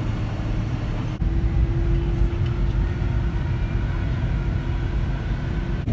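Airliner cabin noise while taxiing: the jet engines' steady low rumble with a steady hum, which breaks briefly about a second in and then sits slightly higher.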